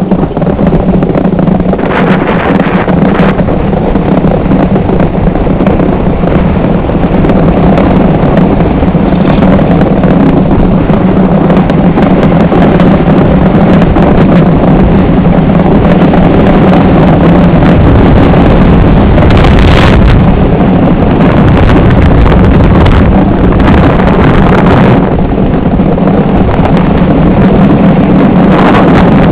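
An iceboat sailing at speed over lake ice: a loud, steady rumble from its runners on the ice, heard through the hull, mixed with heavy wind buffeting on the microphone.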